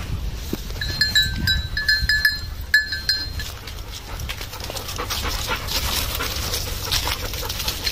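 Metal jingling from dogs' collars: a quick, irregular run of short ringing clinks for a couple of seconds. Then dogs' paws and footsteps rustle through dry fallen leaves, with a dog panting.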